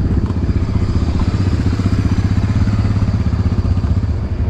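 A vehicle engine running steadily with a low, rapid rumble.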